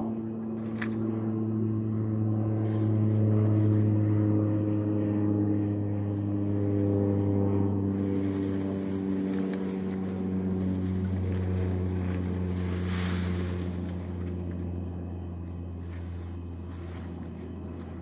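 An engine running steadily, its pitch sinking slowly. It is loudest a few seconds in and fades gradually, with a rushing hiss rising and falling in the middle.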